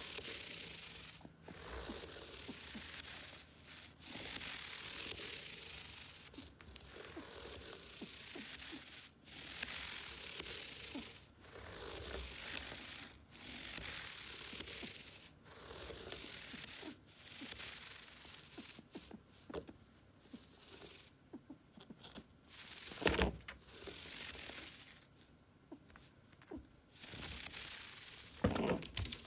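Repeated rough scraping and rustling bursts, each about a second or two long with short gaps, in a rabbit's cage while it is being cleaned. Two sharp thumps come near the end.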